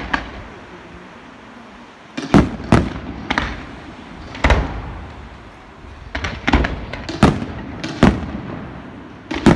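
Fireworks display: after about two quieter seconds, roughly nine sharp bangs go off at uneven intervals, each trailing off briefly.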